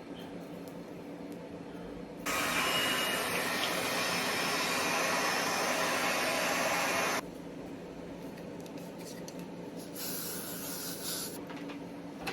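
A loud, steady hiss lasting about five seconds that starts and stops abruptly, then a shorter, fainter hiss near the end, over a low steady hum.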